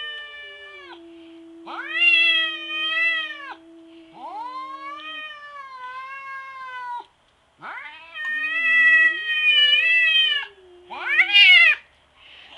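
Cats caterwauling at each other: long, drawn-out yowls that rise and fall, about four of them, over a lower held tone, with a shorter, sharper rising yowl near the end. It is the sound of a standoff between two rival cats.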